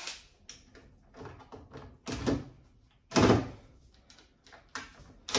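A few wooden knocks and clunks from a kitchen cabinet drawer and its slide hardware being handled, the loudest about three seconds in.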